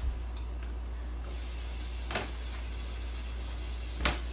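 Aerosol can of nonstick cooking spray hissing steadily as it coats a pan, starting about a second in. Two light knocks come partway through.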